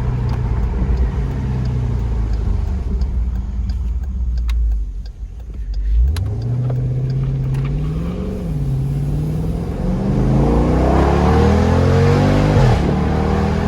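2018 Jeep Grand Cherokee SRT's 6.4-litre V8, breathing through an AFE cold air intake and Borla cat-back exhaust, running low and then accelerating hard. The engine note climbs from about six seconds in, falls at a gear change around eight seconds, then climbs again and drops at a second shift near the end.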